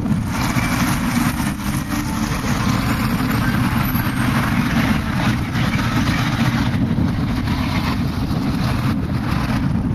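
Outdoor street noise: a steady low rumble with an even hiss above it.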